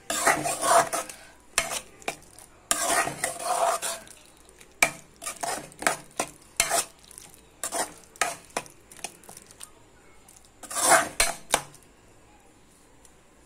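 Steel spoon stirring and scraping a thick tomato and cucumber curry around a metal pan, in irregular strokes with a few louder bursts of scraping.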